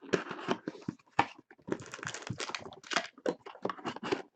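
Plastic wrapper crinkling and tearing as a sealed trading card box is opened, an irregular run of small crackles.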